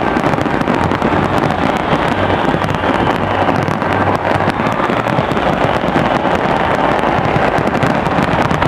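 Dense fireworks barrage, with many bangs and crackles running together into a continuous, unbroken din.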